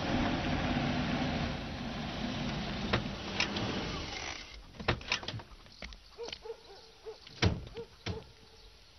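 Land Rover Defender's engine running as it pulls up and stops, dying away about four and a half seconds in. Then a run of sharp knocks and clunks from a vehicle door, the loudest about seven and a half seconds in.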